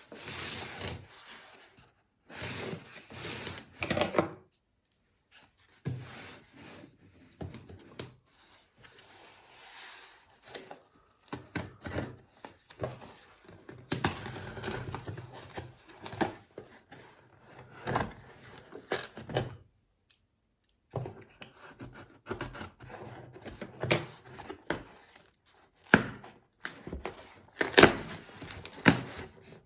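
Unboxing handling sounds: packaging being torn and rustled, with irregular clicks and knocks of plastic parts, broken by a few short silent gaps.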